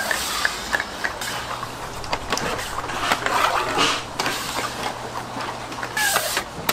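Busy market background: scattered clicks and knocks over a noisy haze, with a steady low hum setting in about a second in and a brief pitched call near the end.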